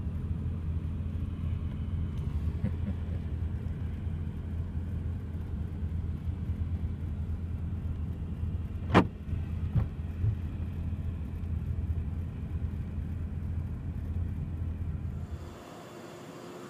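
Low steady rumble of a car idling, heard from inside its cabin, with a sharp knock about nine seconds in and two lighter knocks just after. The rumble drops away shortly before the end.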